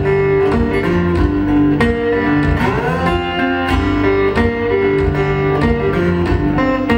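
Solo acoustic guitar, picked notes over a low bass line, with one note gliding up in pitch about two and a half seconds in.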